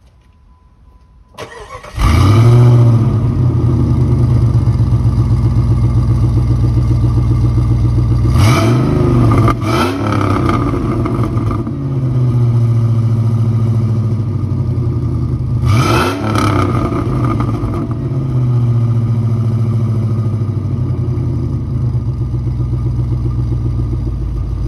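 Exhaust of a 2001 Jeep Grand Cherokee WJ's 4.7-litre V8, running through a high-flow cat, a 3-inch pipe with the resonator deleted and a turbo muffler. The engine starts up about a second and a half in, settles to idle, and is revved in short blips around a third of the way in and once more past halfway, dropping back to idle each time.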